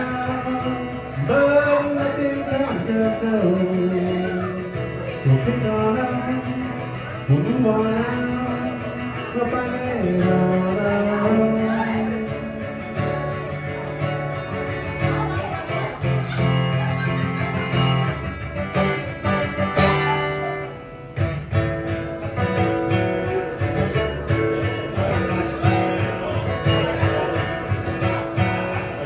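Acoustic guitar strummed steadily with a voice singing over it for roughly the first dozen seconds, then the guitar carrying on alone as an instrumental break. The music dips briefly in loudness about two-thirds of the way through.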